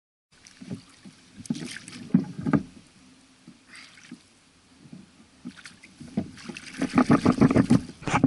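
Knocks and thumps of handling against a kayak, with a short splash of water about four seconds in as a northern pike is let back into the lake; near the end a quick run of rapid knocks.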